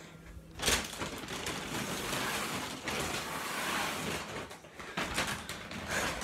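Rustling and knocking of a woven plastic shopping bag and the plastic hamster accessories inside it being handled, starting with a sharp knock about a second in, then steady crinkling with a few clicks near the end.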